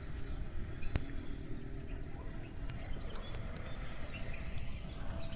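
Wind blowing through tree leaves, a steady rush, with birds chirping in short high calls every second or so. There is one sharp click about a second in.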